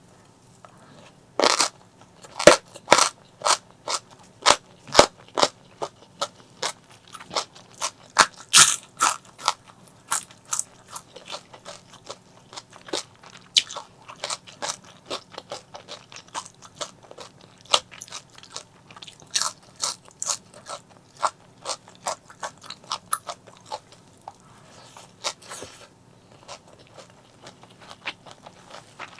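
Close-miked crunchy chewing of fried fish: crisp, sharp crunches come a few a second, with a brief lull near the end.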